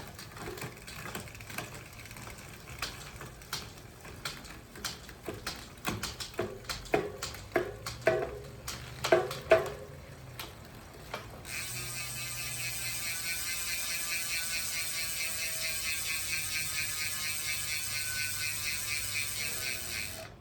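Mountain bike freewheel ratcheting: first a run of clicking bursts as the cranks are turned backward to work freshly applied chain wax in, then, a little past halfway, a continuous fast pawl buzz as the rear wheel spins freely.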